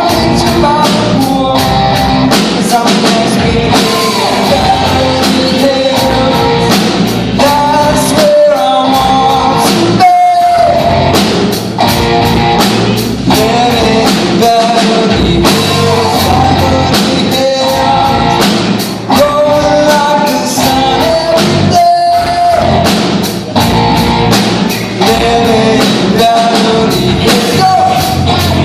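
Rock band playing loudly, with guitars and drums under a lead melody line.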